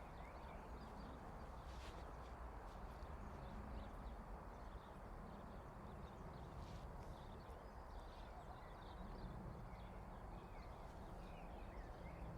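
Faint outdoor background: a steady low rumble, with small birds chirping here and there.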